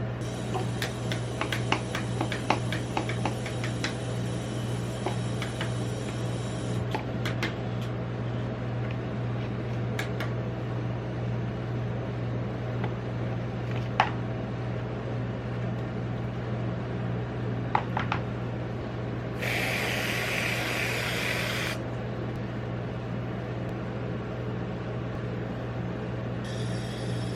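Steady hum of a rolled-ice-cream freezer plate's refrigeration unit, with metal spatulas tapping and scraping on the frozen steel plate, in quick clusters during the first few seconds and as single knocks later. About two-thirds of the way in comes a hiss lasting about two seconds.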